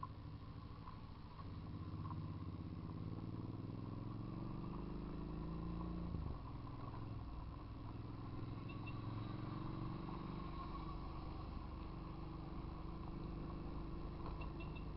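Motorcycle engine running under way, its pitch rising as it accelerates, then dropping suddenly about six seconds in before running on steadily.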